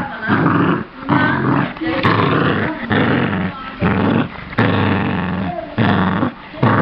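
Cavalier King Charles Spaniel puppy growling in a run of short play growls while tugging and chewing on a rope toy.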